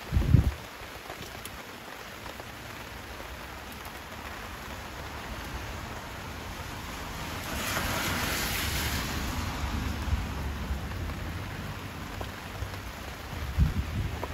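Steady rain falling, growing louder for a couple of seconds about eight seconds in, with a short low thud at the very start and another near the end.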